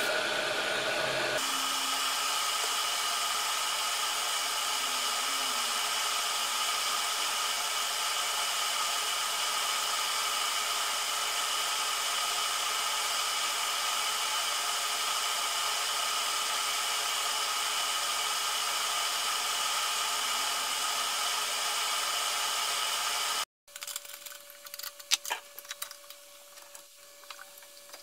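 Workshop machinery running with a steady, blower-like whir and hiss while a pepper mill blank turns on a wood lathe. It cuts off suddenly near the end and gives way to a quieter lathe hum with light tool scrapes and clicks on the wood.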